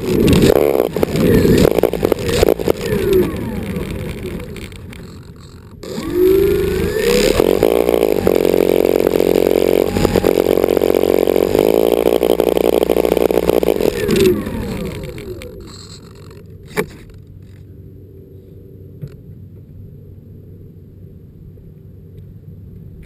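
Twin propeller motors of an RC model plane, heard up close from a camera on the plane while it sits on pavement. They wind down in the first few seconds, rev up again about six seconds in and run steadily for several seconds, then wind down about fifteen seconds in. A faint low hum and a single click follow.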